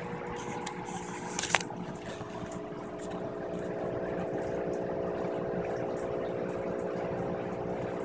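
A steady mechanical hum made of several fixed tones over a noisy hiss, with one sharp click about one and a half seconds in.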